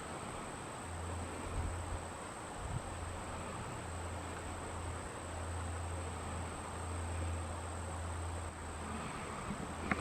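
Steady high-pitched insect buzz over a low steady rumble, with a few faint thumps.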